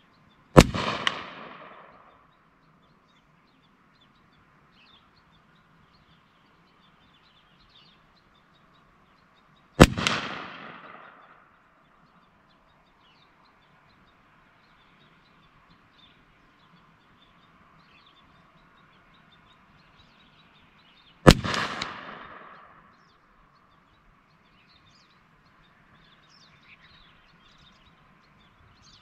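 Three rifle shots from a Rossi Circuit Judge revolver-action rifle chambered in .45 Colt, about ten seconds apart, each trailing off over about a second and a half.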